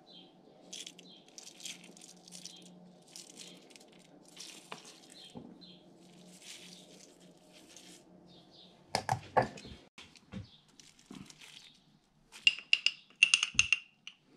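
Breakfast being assembled in a bowl: soft rustling of seeds spooned over fruit. About nine seconds in comes a sharp clatter of spoon and glass jar, and near the end a quick run of metallic rattling as a small tin is shaken over the bowl.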